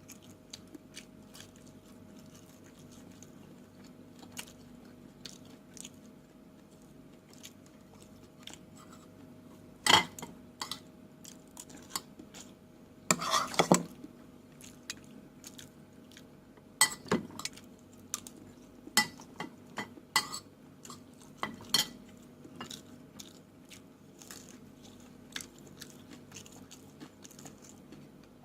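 Close-miked eating: chewing, with cutlery knocking and clicking against a plate in scattered sharp strokes. The loudest knock comes about ten seconds in, followed by a noisy burst lasting about a second, and a cluster of clicks a little later, over a faint steady hum.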